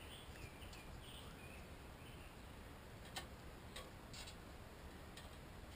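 Near silence: faint outdoor woodland ambience, with a few faint high chirps near the start and a handful of soft scattered ticks.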